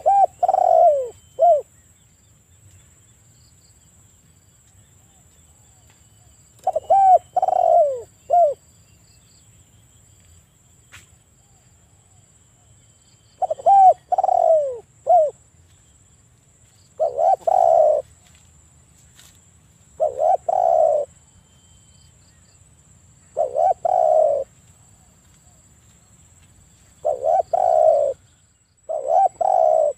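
Spotted dove cooing: about eight short coo phrases, one every three to four seconds, each made of a few quick arching notes.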